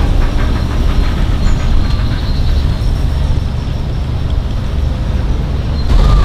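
A 10¼-inch gauge miniature steam locomotive running along its track, puffing in a regular beat over a steady low rumble.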